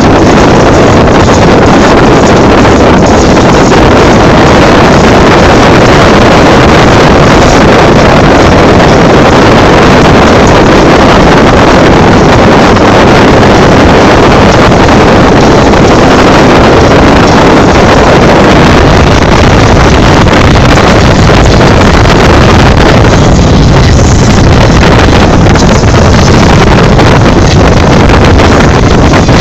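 A boat's engine running steadily under loud wind noise on the microphone, with no pauses or changes.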